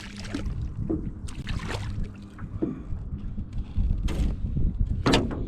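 Strong wind buffeting the microphone in a small open boat, a steady low rumble, with several short sharp noises over it, the loudest about five seconds in.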